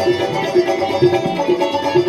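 Instrumental passage of traditional Pashto music led by a plucked string instrument playing quick repeated notes, between sung lines.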